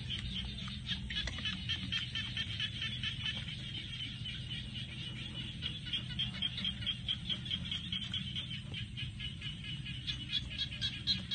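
Night chorus of frogs, a dense run of quick high-pitched calls over a low steady hum, growing louder near the end.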